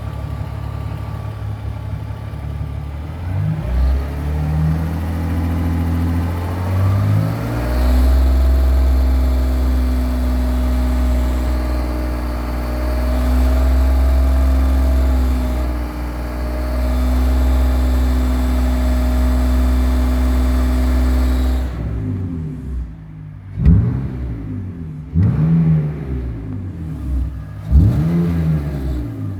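BMW E46 330Ci's straight-six engine running: its pitch climbs a few seconds in and then holds steady, and near the end it is revved up and let fall in several quick blips. The car is making a strange noise that the owner connects with the gearbox.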